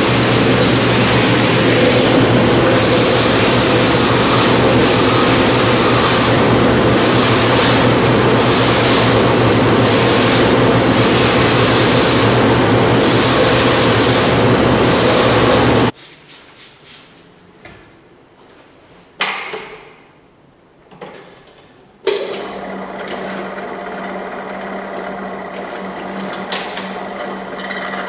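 A Sutton shoe finishing machine runs loudly while the edge of a shoe sole is sanded on its wheels, the high rasp of the sole on the wheel coming and going. It stops abruptly about halfway through. After a few soft handling knocks, a welt stitching machine starts up with a steady hum.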